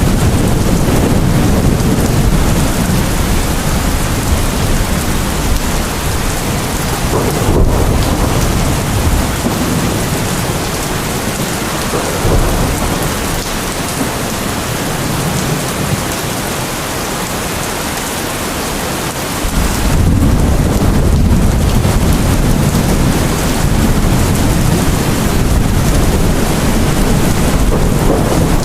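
Steady rain with deep rolling thunder under it. The low rumble eases after about eight seconds and comes back strongly about twenty seconds in.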